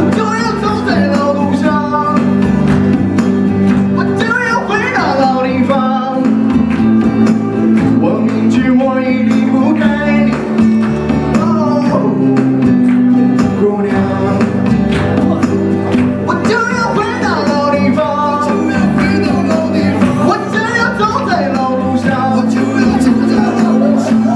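Rock song music playing loudly: a steady accompaniment with a bending melody line over it.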